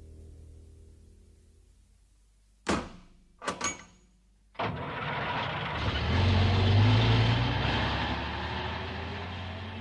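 Orchestral music fades out, then a sharp metal click and two quick clicks of a key turning in a padlock. About a second later a truck's noise starts suddenly, a low rumble with a rushing hiss that swells and then slowly fades.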